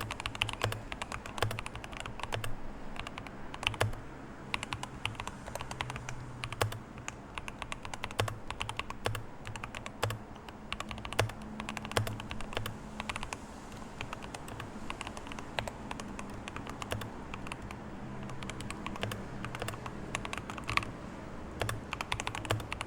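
Tecware Phantom+ mechanical keyboard with Technoblade keycaps being typed on fast and without pause: a dense, irregular clatter of keystrokes.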